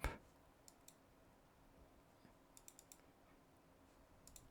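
Faint computer clicks over near silence: a few scattered single clicks, with a quick run of three or four about two and a half seconds in.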